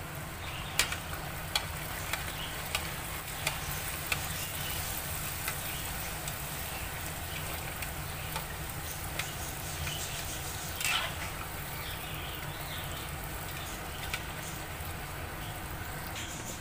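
A puri deep-frying in hot oil in an aluminium pan: a steady sizzle, with sharp ticks about every half second or more in the first few seconds, scattered ticks after that, and a louder crackle about eleven seconds in.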